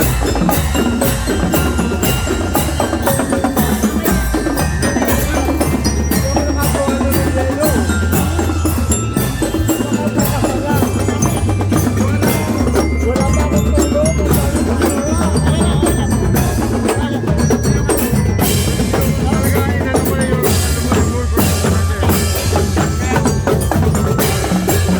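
Percussion band playing continuous, dense drum beats over a steady bass drum, with ringing bell-like mallet notes on top.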